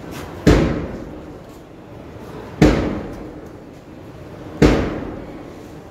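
Three heavy thumps about two seconds apart, each dying away over about a second.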